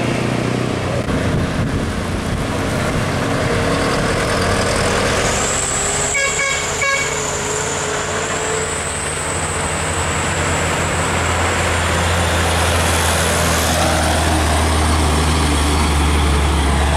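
Heavy diesel trucks' engines running as they pass on the bend, with two short horn toots about six and seven seconds in. From about ten seconds, a heavy truck's low engine drone grows louder and holds to the end.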